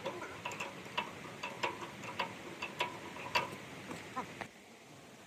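Irregular light clicks and taps, a few each second, dying away about four and a half seconds in.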